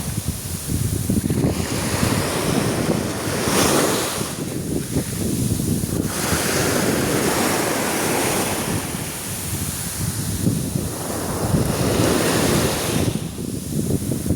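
Sea surf washing onto a beach, swelling and easing every few seconds, with wind rumbling on the microphone.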